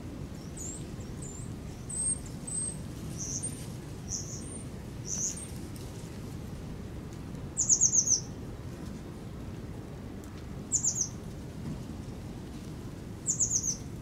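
Small birds calling: scattered single high chirps in the first five seconds, then three quick runs of rapid, high, falling notes, the loudest about halfway through, another a few seconds later and the last near the end. A steady low rumble lies underneath.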